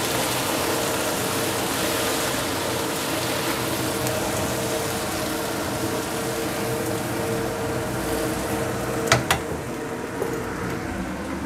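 Water hissing and bubbling in a hot wok of shredded cabbage and carrot as a spatula stirs the vegetables, a steady sizzle, with two sharp clicks about nine seconds in.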